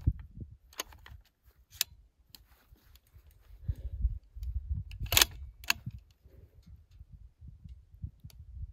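Sharp metallic clicks of 300 PRC cartridges being loaded into a Ruger Precision Rifle's magazine, about five separate clicks with the loudest pair around the middle, over a low rumble.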